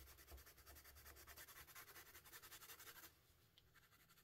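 Faint scratch of a soft-core coloured pencil shading on paper, in rapid even strokes that stop about three seconds in.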